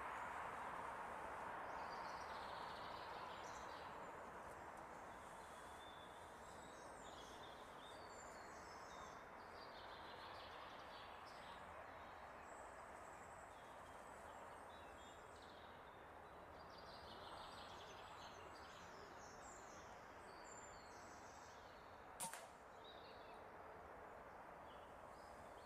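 Faint woodland birdsong over a steady hiss, then near the end a single sharp crack of an air rifle shot.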